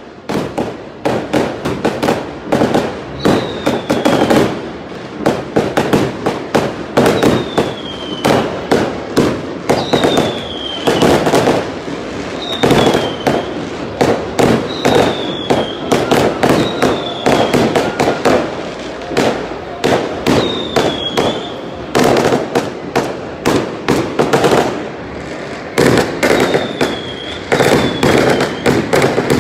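Fireworks going off in rapid, continuous bangs and crackles, many bursts overlapping. A short falling whistle recurs every two to three seconds.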